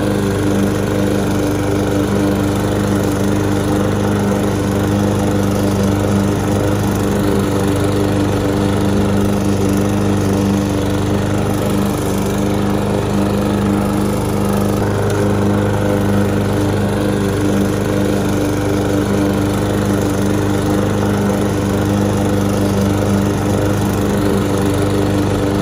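Walk-behind gasoline lawn mower's small single-cylinder engine running at a steady speed while being pushed across grass.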